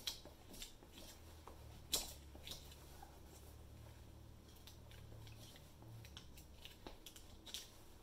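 Faint, irregular crunching and crackling of a knob transfer's clear plastic carrier sheet being rubbed with a burnishing tool. The crunch is the sign that the transfer is releasing from the plastic onto the knob. A steady low hum sits underneath.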